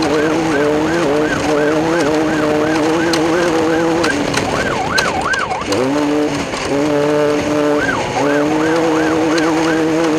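A siren wailing up and down quickly, about three sweeps a second, over an engine running steadily. The siren drops out around six seconds in, then resumes near the end.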